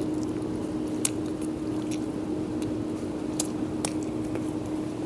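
Biting into and chewing a large burger, with a few sharp mouth clicks, over a steady low hum.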